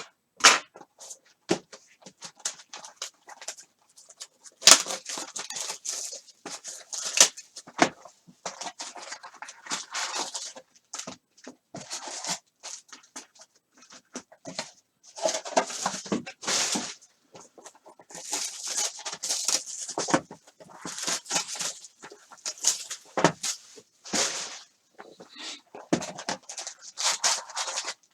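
Plastic wrap and foil trading-card pack wrappers being torn open and crinkled, in irregular crackly bursts.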